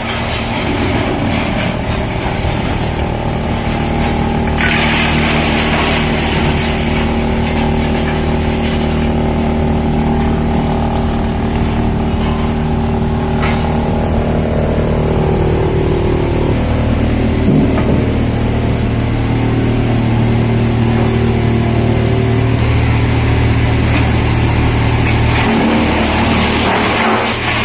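Bolida 218 drum wood chipper running steadily as it crushes waste wood into chips: a constant low machine hum under a rough grinding noise, with one sharp crack about halfway through.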